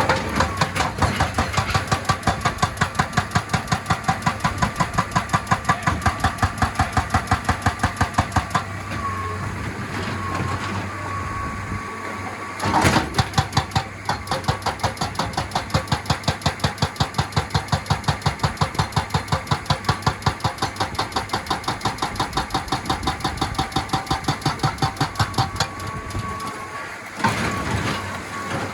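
Excavator-mounted hydraulic rock breaker hammering rock in a rapid, even stream of blows, about eight to ten a second, over the excavator's running diesel engine. The hammering stops for a few seconds about a third of the way in and again near the end, leaving the engine running.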